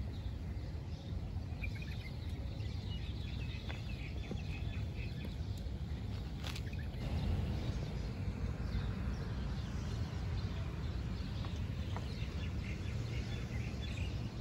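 Outdoor ambience: a steady low rumble with birds chirping off and on, and a single click about halfway through.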